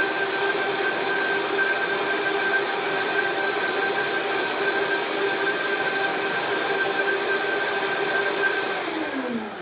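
Vitamix blender motor running at a steady high speed with a loud whine, blending a small batch of liquid salad dressing. Near the end it is switched off and winds down, its pitch falling.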